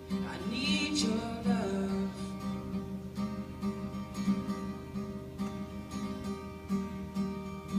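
Acoustic guitar strumming a steady, repeating chord pattern: the intro of a song, before the vocal comes in. A short wavering voice or call sounds over it during the first two seconds.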